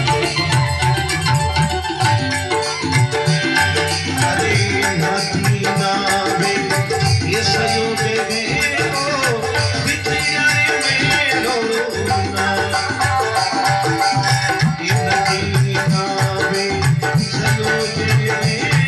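Instrumental passage of a Marwari devotional song (bhajan): a steady drum rhythm with held melodic lines over it and no voice.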